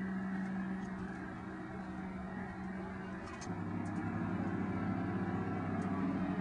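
A motor engine running steadily, its note shifting lower and louder about halfway through.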